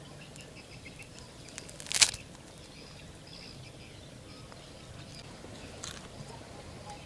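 Faint, short bird chirps against a quiet outdoor background, with one sharp snap about two seconds in.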